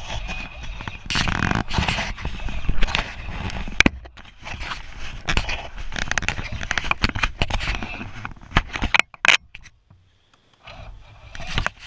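Handling noise on a camera mounted on an RC truck: irregular scraping, rubbing and sharp clicks, dropping out briefly near the end.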